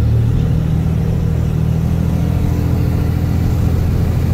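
A 6.7 L Cummins turbo-diesel running steadily, with the turbocharger's faint high whistle over the engine note. The whistle is back now that a broken boost pressure line has been replaced.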